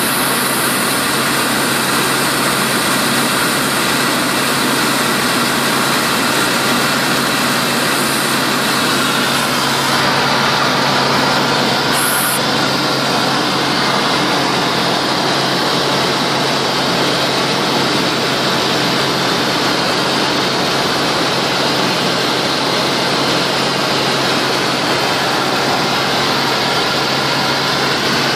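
Tecnam P92 ultralight's piston engine and propeller running steadily in flight, heard from inside the cockpit.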